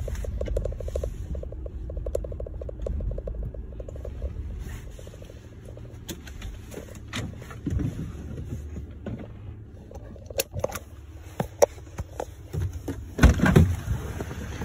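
A car driving: a steady low rumble with a fast rattle early on and scattered clicks and knocks, the loudest of them near the end.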